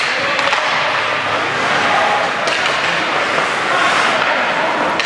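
Ice hockey play on an indoor rink: a steady scraping hiss of skates on the ice, with a few sharp clacks of sticks and puck and indistinct voices.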